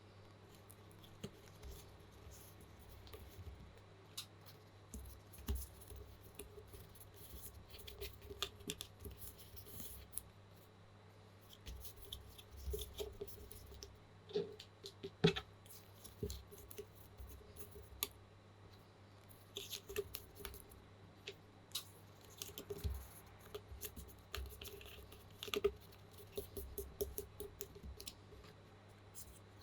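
Irregular small clicks, taps and scrapes of mechanical keyboard parts being handled and fitted together while a TU40 plastic keyboard kit is assembled.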